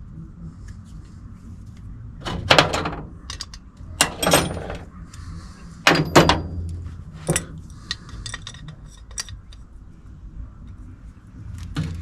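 Metal tools and parts being handled and set down: four sharp clanks about two seconds apart, with lighter clicks and rattles in between.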